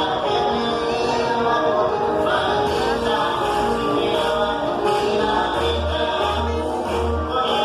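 Upbeat Latin dance music with singing, played for a Zumba workout; a pulsing bass beat comes in about halfway through.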